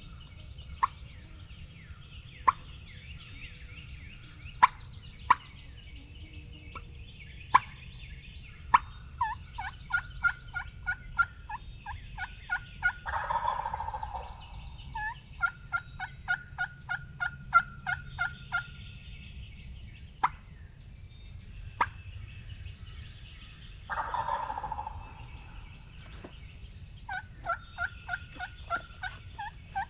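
Wild turkey gobbler gobbling twice, a little before halfway and again about four-fifths of the way in. Runs of fast, evenly spaced turkey call notes come between the gobbles, and several sharp clicks sound in the first third.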